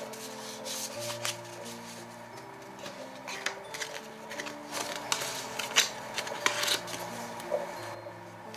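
Paper cards rustling and rubbing as a stack of small photo cards is shuffled and slid into a paper packet, with short crackles and taps that are busiest in the middle, then a card is laid down on book pages near the end. Soft background music with long held notes plays underneath.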